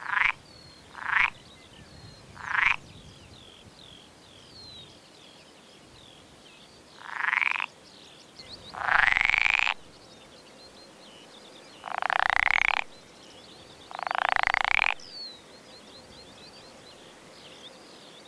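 Pool frog calling, its song amplified by paired vocal sacs: three short croaks in the first three seconds, then after a pause four longer calls of about a second each, each rising in pitch. Faint bird chirps go on behind.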